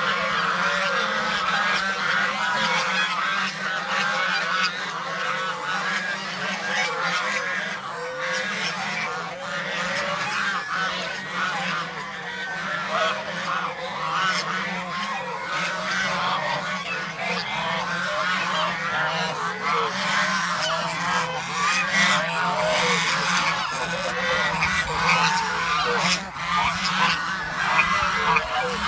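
A flock of Chinese geese honking continuously, many birds calling over one another in a dense chorus, with a low steady hum underneath.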